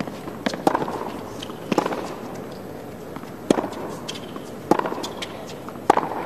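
Tennis ball struck by rackets in a baseline rally on a hard court: sharp pops roughly every second or so, some louder than others, with a few fainter knocks between them.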